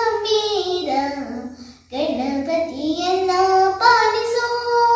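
A young girl singing a Kannada devotional song to Ganesha, with a short break for breath about one and a half seconds in, then a long held note near the end.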